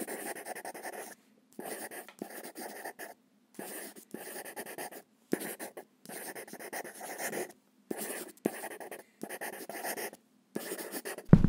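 Felt-tip markers writing on paper: runs of scratchy pen strokes, each lasting about a second, broken by abrupt silent gaps. A loud thump comes right at the end.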